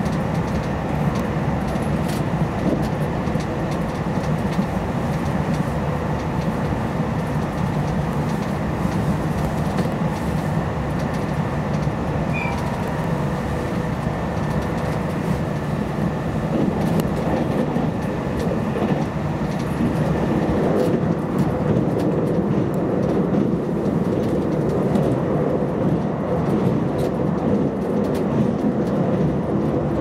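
Steady running noise heard inside the cabin of a JR Hokkaido 789 series electric express train travelling at speed, growing a little louder about two-thirds of the way through.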